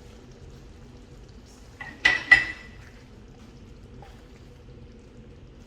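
A metal utensil knocking against a cooking pot: three sharp, ringing clinks close together about two seconds in. A faint steady hum runs underneath.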